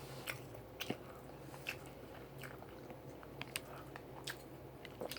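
Someone chewing fried chicken close to the mic: soft, scattered crunches and mouth clicks, roughly one every second, over a steady low hum.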